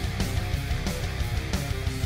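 Background rock music with distorted guitar and a steady drum beat.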